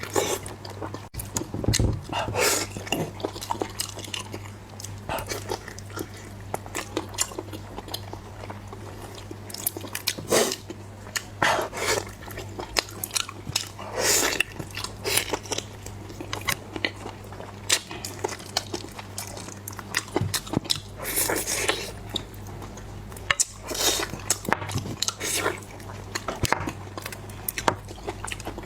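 Close-miked eating: a person biting and chewing food with irregular crunches, over a steady low hum.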